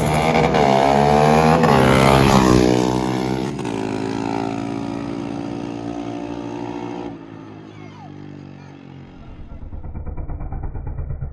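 Street-race launch: engines revving hard and climbing in pitch through about three gear changes, then pulling away and fading. About nine seconds in, a nearer engine sets up a pulsing, uneven running sound.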